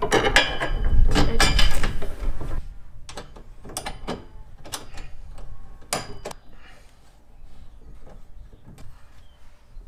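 Handling noise of metal tools on a steel pole: two Allen keys knocking and clicking against a locking bolt and the support brackets as the bolt is turned. The first two seconds or so are louder and busier. After that come scattered light metallic clicks, a few at a time.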